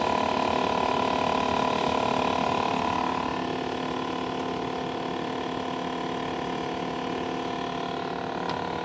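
Refrigerant recovery machine running steadily, its compressor motor humming as it pushes refrigerant from the cylinder into the air conditioner during charging. The hum gets slightly quieter about three seconds in.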